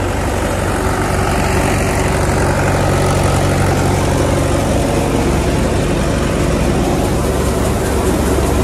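Tractor engine and the mustard thresher it drives running steadily together: a loud, continuous low mechanical drone with the thresher's rushing whir over it.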